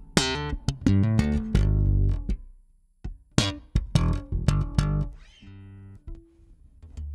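Five-string electric bass played solo: a run of plucked notes with sharp attacks, a pause about two and a half seconds in, then another quick flurry and a few ringing notes that die away near the end.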